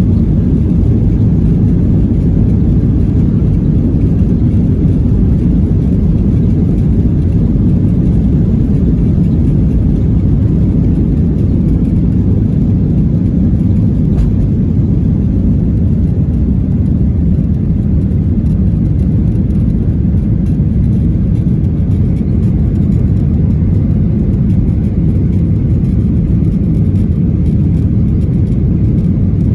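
Steady low rumble of jet airliner cabin noise, even and unchanging throughout.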